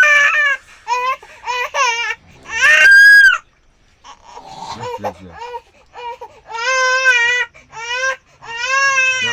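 A young child crying and wailing in repeated high-pitched sobs, with a loud shriek a few seconds in, a brief pause, then longer drawn-out wails near the end.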